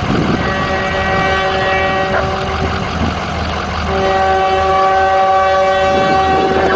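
Locomotive air horn blowing one long held chord over the rumble of a moving train; the horn's chord changes about four seconds in.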